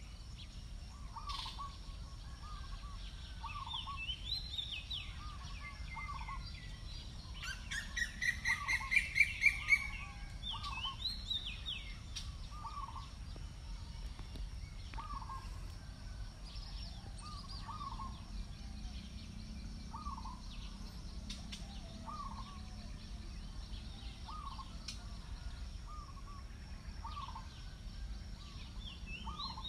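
Birds calling outdoors. One bird repeats a short call about once a second, others chirp higher, and a loud rapid run of rising calls comes about eight seconds in.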